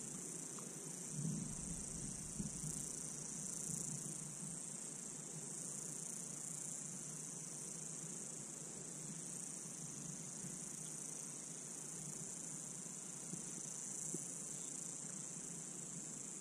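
A chorus of insects keeps up a steady, high-pitched buzz without a break, with a few faint knocks beneath it.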